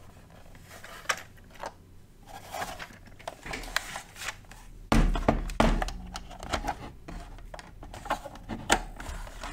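Plastic case of a Sinclair ZX Spectrum+ home computer being turned over, handled and set down on a wooden desk, then its leads plugged in: a run of knocks, clicks and scrapes, the loudest thump about five seconds in.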